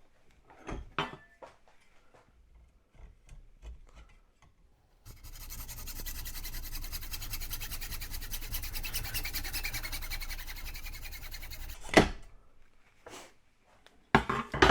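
A few knocks as a part is clamped in a vise, then a small power tool runs steadily for about seven seconds, cutting through a plastic 7-way trailer connector, and stops with a sharp knock about twelve seconds in.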